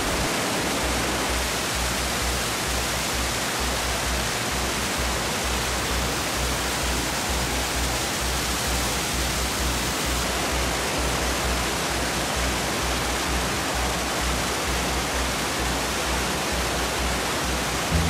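Water pouring over a small concrete weir and rushing over rocks in a mountain stream: a steady, even rush of falling water.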